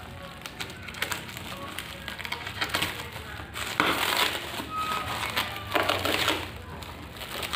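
Clear plastic wrap crinkling and tearing as a knife cuts it away from a cardboard box. There are louder rustling bursts about four and six seconds in.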